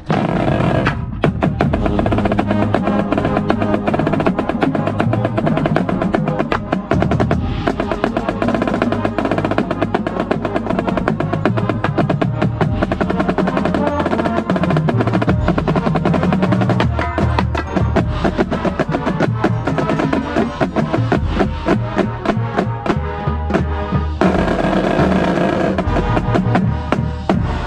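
Marching snare drum played close up, with fast strokes and rolls, inside a full drumline with bass drums sounding underneath.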